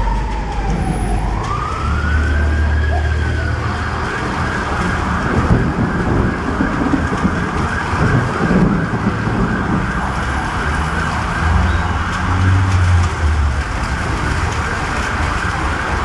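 An emergency vehicle siren wails, falling in pitch, then rising again about two seconds in and staying at its high pitch, over steady street noise with low rumbles.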